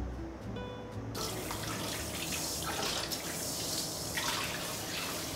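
Kitchen tap running into a stainless-steel sink, the water splashing over dishes being rinsed by hand; it starts suddenly about a second in.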